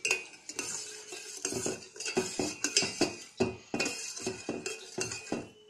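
Metal spoon stirring sugar syrup in a stainless steel pot, clinking and scraping against the bottom and sides again and again.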